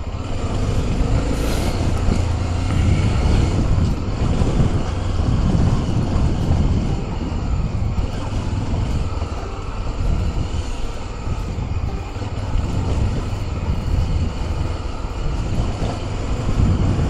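Motorcycle engine running steadily on the move, with wind noise over a continuous low hum.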